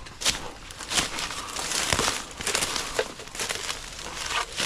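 Footsteps crunching and rustling through dry fallen bamboo leaves and brush, with irregular sharp cracks of dry stalks.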